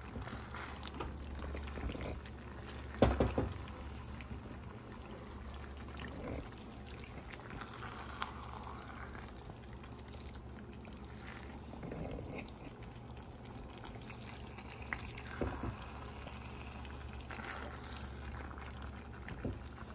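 Thick cream sauce of a Cajun penne pasta bubbling and squelching in a skillet as it is stirred with a silicone spatula, a soft wet smacking. A few sharper clicks stand out, the loudest about three seconds in.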